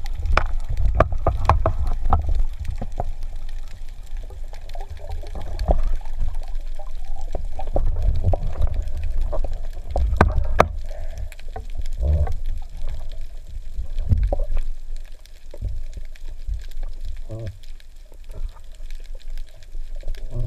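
Water sloshing and bubbling heard through an underwater camera housing, with a steady low rumble and scattered clicks and knocks from the speargun and shaft being handled.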